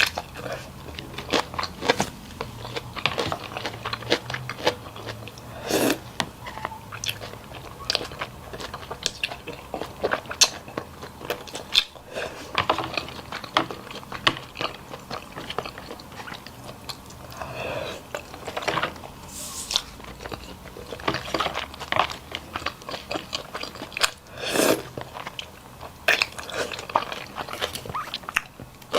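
A person eating close to the microphone: chewing and biting, with many short crunches and clicks and a few louder bites.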